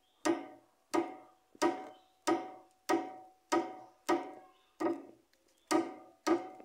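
Worn front stabilizer (sway bar) link on a Chevrolet Onix knocking about ten times in a steady rhythm, roughly one and a half knocks a second, each with a short ring. This is the 'tuc tuc tuc' clunk of a worn link that is heard when turning the steering wheel.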